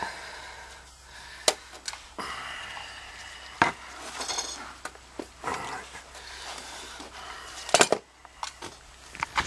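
Irregular clinks and knocks of tools and metal parts being handled, a few sharp separate hits with rustling between them, the loudest a double knock late on.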